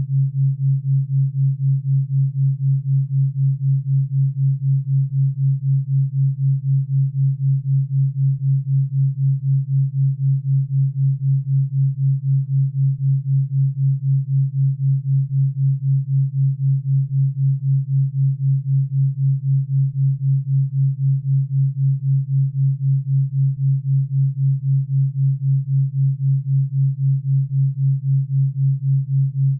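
Theta-wave brainwave-entrainment tone: a steady low pure hum that pulses evenly several times a second, unchanging throughout.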